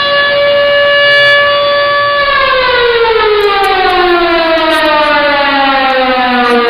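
Simulated outdoor tornado warning siren from a siren-simulator app. It holds a steady tone, then about two seconds in begins winding down, its pitch falling steadily.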